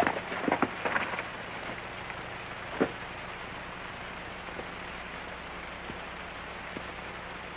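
Horses' hooves clattering as riders pull up at a gallop, dying away about a second in, with one more knock near three seconds. After that there is only the steady hiss of an old film soundtrack.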